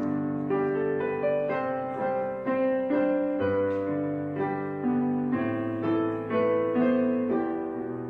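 Background music: a slow, gentle solo piano piece with sustained chords and a melody changing every second or so.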